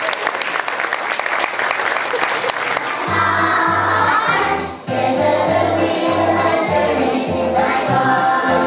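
A group of young children singing along to backing music, with a pulsing bass line coming in about three seconds in.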